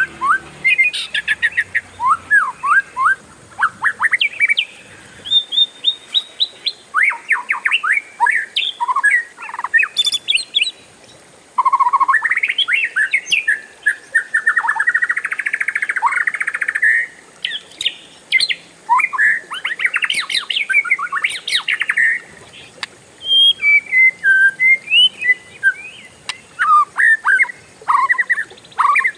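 Oriental magpie-robin (kacer) singing: a run of varied whistled and chattering phrases, with a long unbroken rolling trill about halfway through.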